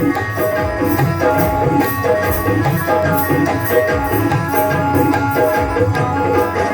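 Devotional bhajan music without singing: held, steady melody notes over a steady beat on a hand drum like a tabla, with bright percussion strokes keeping time.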